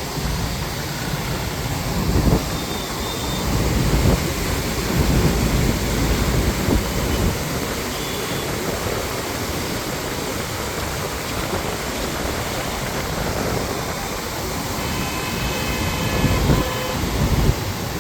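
Swollen river in flood, a loud, steady rush of water, with wind buffeting the microphone in low gusts several times.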